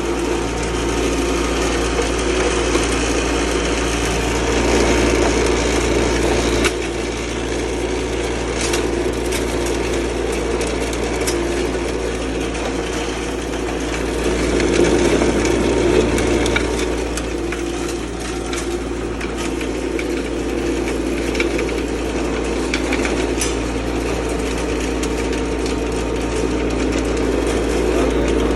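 Alum grinder machine running with a steady motor hum, with scattered small ticks and rattles over it. The sound shifts abruptly about seven seconds in and swells briefly around the middle.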